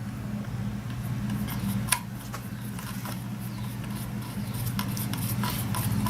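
A small screw being turned in with a hand screwdriver: scraping, rubbing and light metallic clicks, with one sharper click about two seconds in. A steady low hum runs underneath.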